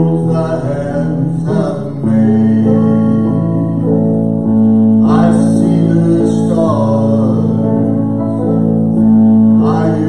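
Live worship band playing a slow song on electric and acoustic guitars, with held chords and strummed and plucked notes over them.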